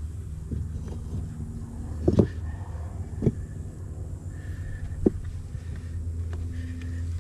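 Steady low hum of a running motor, with three sharp knocks spread through the middle.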